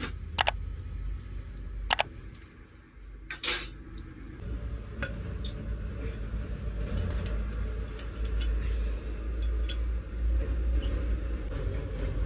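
Metal cooking pots and utensils clinking: a few sharp knocks in the first two seconds and a short clatter about three and a half seconds in. After that comes a steady low rumble with small scattered clicks.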